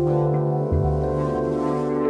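Instrumental music: sustained held chords over a low bass line, the bass moving to a new note about a third of the way in.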